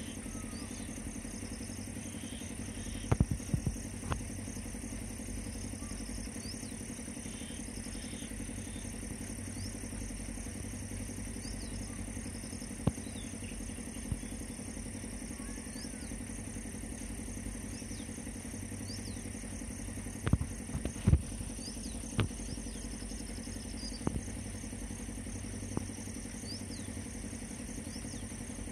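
Outdoor dusk ambience: a steady high-pitched drone with a faster pulsing layer beneath it, over a low steady hum. Occasional sharp clicks and knocks come in clusters, about three seconds in and again around twenty seconds in.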